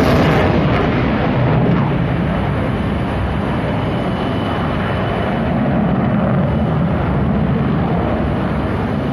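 Jet roar of a Sukhoi Su-30MKI fighter's twin AL-31FP turbofans during a low-level aerobatic display. The roar is loud and rumbling, eases a little after the start, and swells again about six seconds in.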